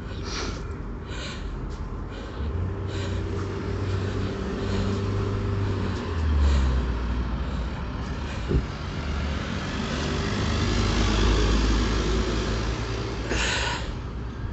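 A vehicle running with a steady low rumble and hum that builds up over the stretch, with one sharp click about halfway through.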